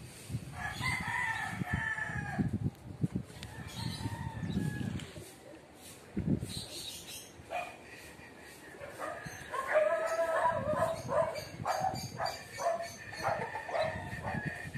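A rooster crowing about a second in, then a longer, broken run of crowing calls over the last five seconds.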